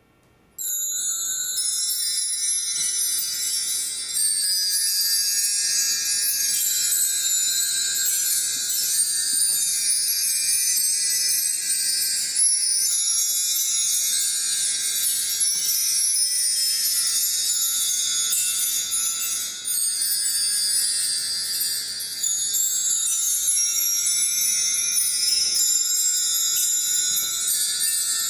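Many small chimes tinkling together in a dense, continuous high-pitched shimmer, starting abruptly about half a second in.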